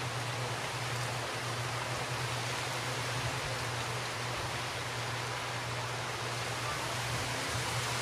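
Steady, even hiss of wind blowing through palm fronds, with a steady low hum underneath.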